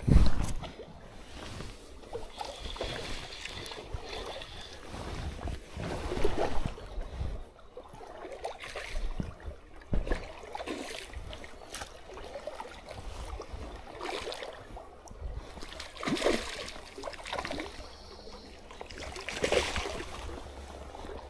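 Stream water sloshing and splashing in irregular surges, with wind rumbling on the microphone and a loud low thump right at the start.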